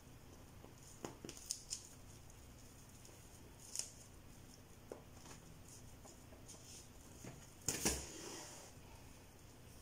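Hand-sewing a curly hair weft onto a wig cap: scattered short clicks and rustles of needle, thread and hair being handled, a quick cluster about a second in and the loudest, longer rustle near the end.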